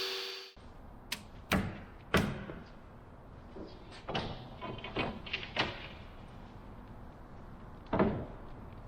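A power saw's running noise cuts off abruptly about half a second in. It is followed by a scattered series of sharp wooden knocks and clunks, about seven in all, the loudest about two seconds in and again near the end, as thin wooden lamination strips are handled and set down on a bench.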